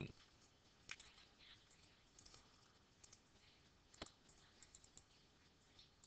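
Faint computer mouse clicks over near silence: a clearer click about a second in and another about four seconds in, with a few softer ticks between.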